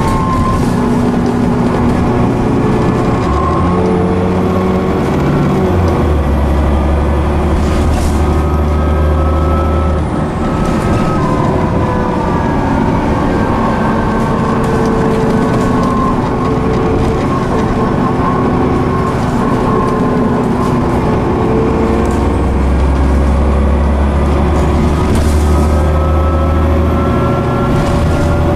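Cummins ISCe diesel engine and Voith D851.3E automatic gearbox of a Transbus Trident double-decker bus under way, heard from inside the passenger saloon. The engine note rises and falls through the gears, and a deep drone comes in twice under harder pull. A few brief sharp knocks sound along the way.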